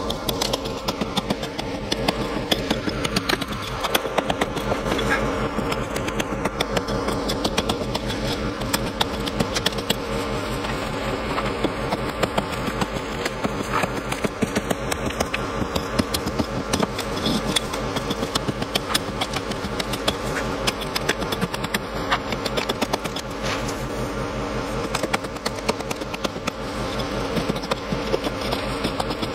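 Rapid, repeated hammer blows on a chisel, chipping out a concrete door step, over a steady engine-like drone. A whine falls in pitch over the first few seconds, like a vehicle passing.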